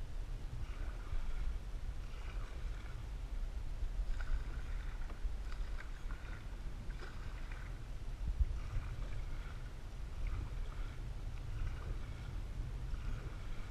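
A canoe being paddled: paddle strokes swishing through the water and dripping, about one every one to two seconds, over a steady low rumble.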